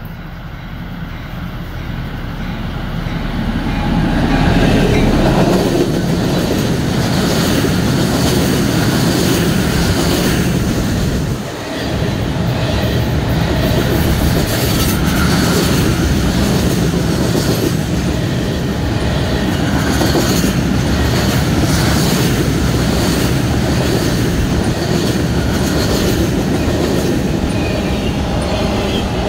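CSX rail train passing close by: its diesel locomotive approaches and goes by, growing louder over the first few seconds. Then flatcars loaded with long welded rail roll past with a steady rumble and a run of wheel clicks over the track, briefly dipping about eleven seconds in.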